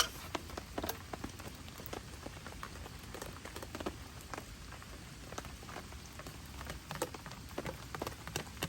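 Rain falling steadily, with large drops tapping irregularly close by and one sharp tap right at the start.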